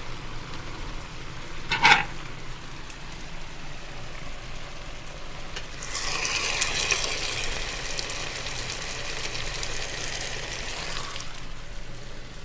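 Food sizzling in a hot frying pan, a steady hiss that grows louder for about five seconds from the middle. A brief sharp sound about two seconds in.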